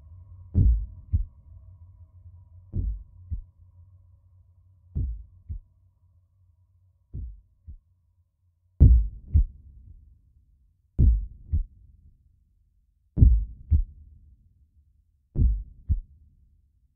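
Deep double thumps like a slow heartbeat, a strong beat followed half a second later by a softer one, repeating about every two seconds, over a low hum that fades out partway through.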